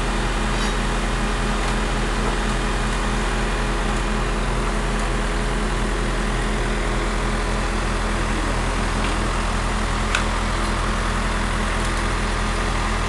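An engine idling steadily with an even, unchanging hum. There is a single light knock about ten seconds in.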